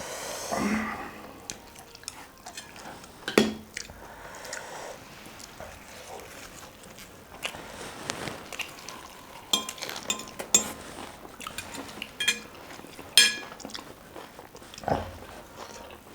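Dishes and cutlery clinking while eating, with scattered small clicks and a few short ringing clinks. The sharpest come about three seconds in and between about ten and thirteen seconds in.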